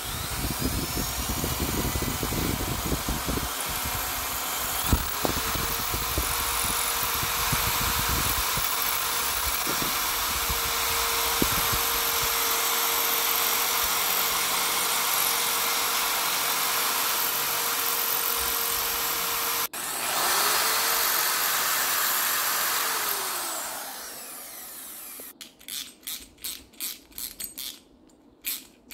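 Craftsman 8-amp corded drill boring up into the ceiling, running steadily at one pitch, stopping for a moment, starting again and winding down. Near the end, a quick run of short clicks as a socket wrench tightens the bolt of the ceiling shackle mount.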